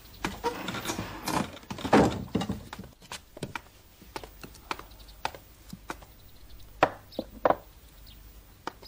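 Scattered sharp wooden knocks and taps at an uneven pace, with rustling about one to two seconds in; the loudest knocks come near the end.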